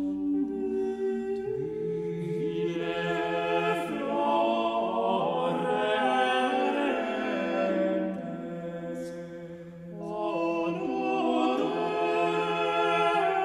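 Background music: an unaccompanied choir singing slow, held chords, softening briefly a little past the middle before swelling again.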